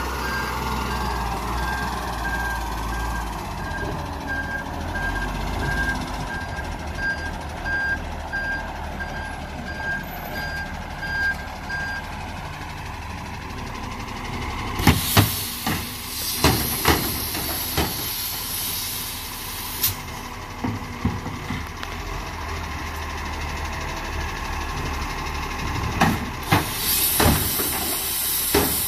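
Side-loader recycling truck running, with a warning beeper beeping at an even rate for about the first twelve seconds. Later, knocks and two stretches of air hiss as the truck's side lifter arm grabs and raises a wheelie bin.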